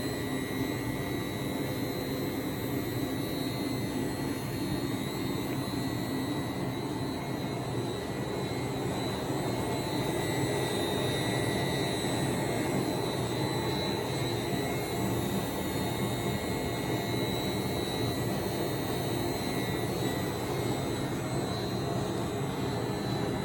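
Poreba TPK110 heavy engine lathe running steadily with its spindle turning under variable-frequency-drive speed control: an even mechanical hum with a thin, steady high tone above it.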